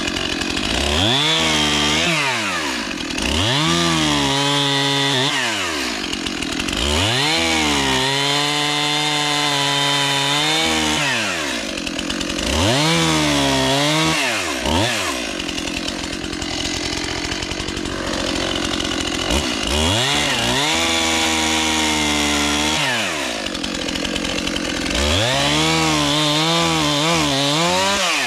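Petrol chainsaw cutting into a small tree trunk, its engine revving up to full throttle and dropping back to idle about six times, with the longest runs of several seconds.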